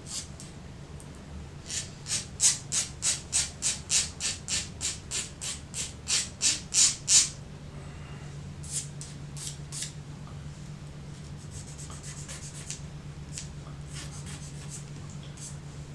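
Nail file rasping back and forth across a guitarist's thumbnail, about three quick even strokes a second for some five seconds, then a few slower, fainter strokes. The nail is being filed down to lower its ramp so it scrapes less on the wound bass strings.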